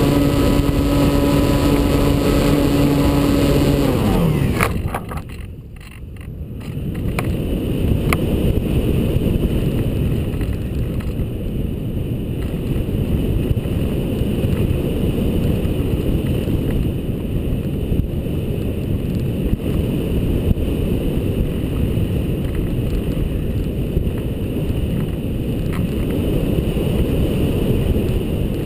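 ParkZone Radian glider's brushless electric motor and propeller running at a steady pitch, cut off about four seconds in and dropping away. Then steady wind noise on the nose-mounted GoPro as the glider flies on unpowered.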